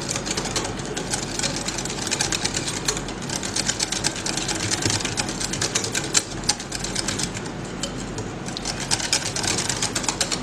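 Wire balloon whisk beating thick pancake batter in a glass bowl: a fast, steady run of clicks and scrapes as the wires hit the glass, the batter being whisked smooth to work out lumps.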